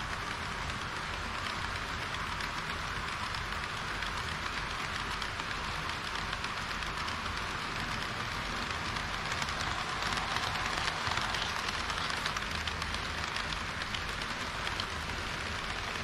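HO-scale model trains rolling on sectional track: a steady rattling hiss of metal wheels on rails with faint clicks at the rail joints. It grows a little louder about ten seconds in as the long rake of tank wagons passes close.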